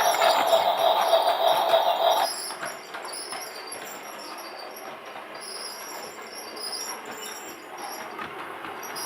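Toy train running: louder for the first two seconds or so, then cutting off abruptly to a quieter, steady running noise.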